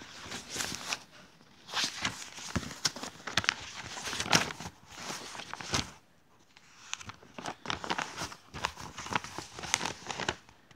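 Rustling and scraping of cloth and bedding against a phone's microphone, with many irregular clicks and knocks from the phone being handled. It goes quieter for a moment about six seconds in, then starts again.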